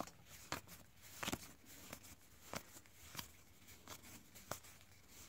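Topps WWE Heritage trading cards being flicked through by hand, a short soft snap of card stock each time a card is moved to the back of the stack, about six times.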